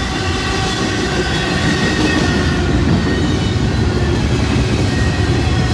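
CN freight train passing close by: a loud, steady rumble of the train rolling over the rails, with a few steady high tones above it.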